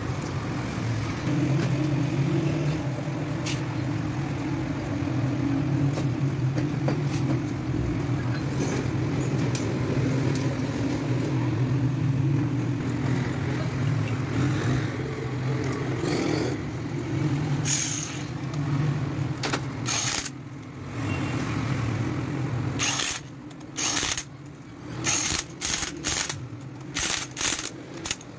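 Steady motor-vehicle engine rumble, breaking up into short, choppy bursts over the last five seconds.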